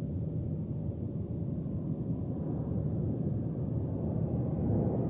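Steady low rumble of a jet aircraft engine, growing slightly louder toward the end.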